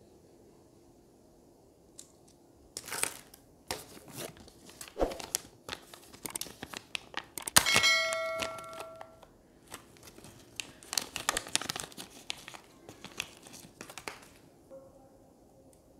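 Clear plastic component bags crinkling and rustling in irregular bursts as they are handled and opened. A short bell-like chime with a few ringing pitches sounds about eight seconds in and lasts about a second and a half.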